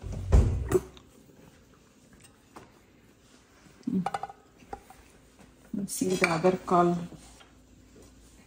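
Plates and serving utensils clinking and scraping as food is dished out, opening with a loud thump.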